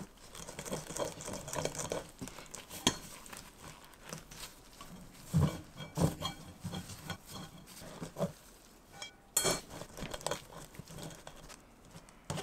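Gloved hands rubbing a crumbly flour mixture through a wire-mesh sieve over a glass bowl: irregular rustling and scraping, with a few sharper knocks of the metal sieve against the glass. Near the end a wooden spoon scrapes the mixture against the mesh.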